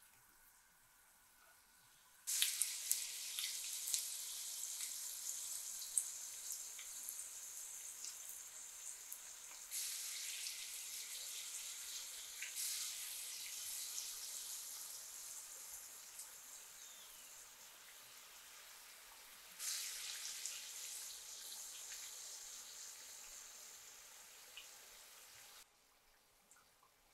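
Cannoli dough shells on aluminium-foil tubes frying in hot oil: a steady sizzle with small crackling pops. It starts about two seconds in, jumps louder twice, and stops shortly before the end.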